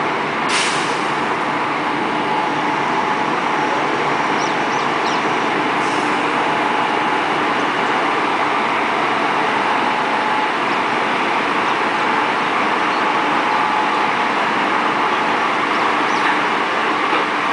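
WAG-7 electric locomotive running as it creeps slowly along the platform: a steady whooshing noise with a faint whine. A short high hiss comes about half a second in, and a fainter one about six seconds in.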